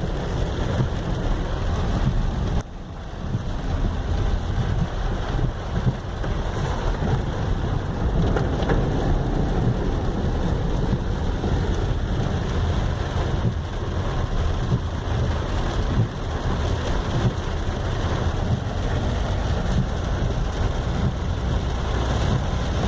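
Heavy rain pouring steadily during a storm, a dense hiss over a deep continuous rumble, with a brief dip about two and a half seconds in.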